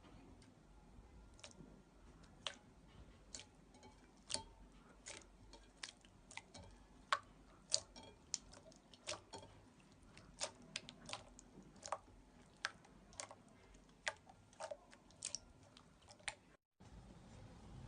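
Slime being pressed and worked by hand, giving sharp, irregular clicking pops of trapped air, about one or two a second.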